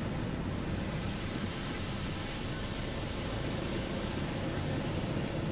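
Steady road and engine noise of a car being driven, a constant low rumble with a hiss over it.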